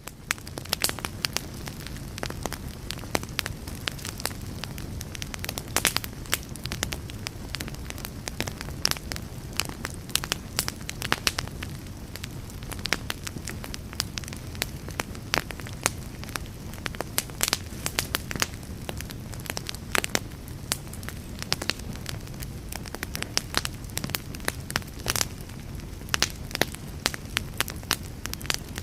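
Wood fire burning with a steady low rumble and frequent irregular crackles and pops.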